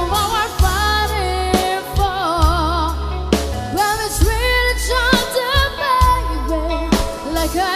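A band playing a slow rock ballad with a lead singer holding long notes with wide vibrato over sustained bass and drum hits.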